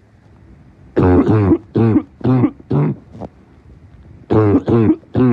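A man's barking cough: a fit of about five short, low-pitched, voiced coughs starting about a second in, then a second fit of three near the end.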